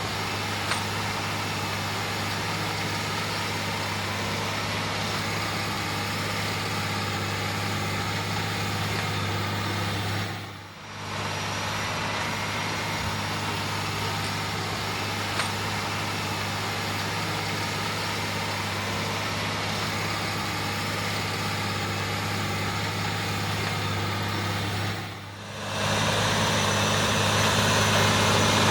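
John Deere 9360R tractor's diesel engine running steadily while pulling an 8-bottom moldboard plow through the field. The sound dips out briefly twice, about 11 and 25 seconds in, and grows a little louder near the end.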